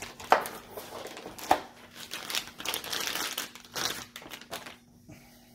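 Clear plastic bag crinkling and rustling as a plastic-wrapped gun stock and receiver are pulled out of the box and unwrapped, with a couple of sharp crackles in the first second and a half.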